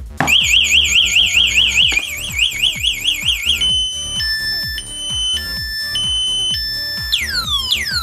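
A 12-volt bicycle alarm's siren speaker sounding its full alarm after being disturbed a second time. It is loud and cycles through its tones: a fast warble, then a high-low two-tone beep switching about twice a second, then rapid falling whoops from about seven seconds in.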